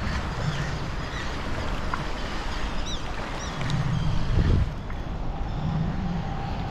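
Wind rumbling on the microphone over moving water, with a louder gust about four seconds in. A few short high chirps of birds come in the first half, and a faint steady hum enters near the end.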